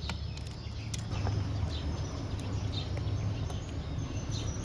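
Light, scattered clicks of die-cast toy cars being picked up, knocking together and set down on a wooden ramp, over a steady low outdoor rumble with faint bird chirps.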